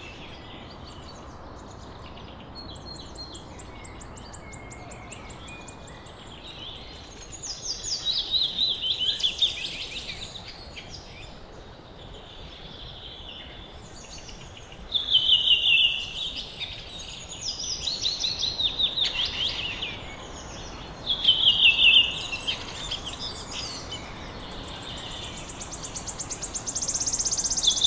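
Songbirds singing: loud song phrases of quick, falling notes every few seconds, with a fast high trill near the end, over a faint steady background of more distant birdsong.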